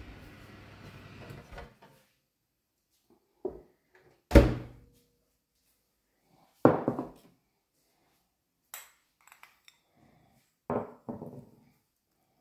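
A low steady hum stops about one and a half seconds in, followed by five or six separate knocks of kitchen items being handled and set down, the loudest about four seconds in.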